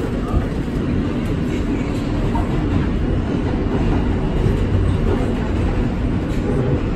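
R160 subway car running through a tunnel, heard from inside the car: a steady, deep rumble of the wheels on the rails and the running car.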